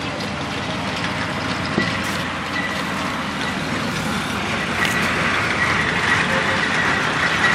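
Steady background vehicle noise with a faint, thin high whine, growing a little louder in the second half.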